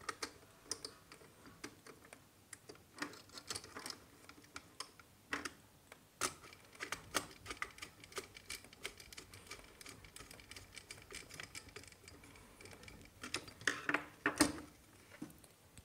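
Irregular small clicks and taps of wire and a screwdriver being worked into the screw terminals of a plastic modular switch board, with a louder cluster of clicks near the end.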